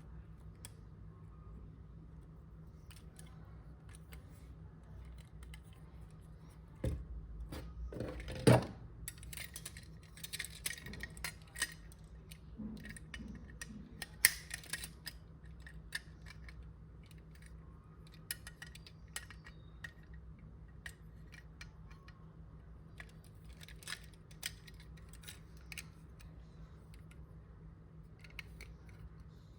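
Handling of a diecast model car and its packaging: scattered clicks, taps and rustles, busiest in the middle, with a sharp knock about eight and a half seconds in. A low steady hum sits underneath.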